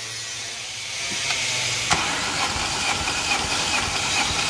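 Starter motor cranking the A20NFT 2.0-litre turbo four-cylinder engine over for a compression test on cylinder three. The cranking builds up about a second in, with a sharp click near two seconds, then runs on as an uneven string of pulses.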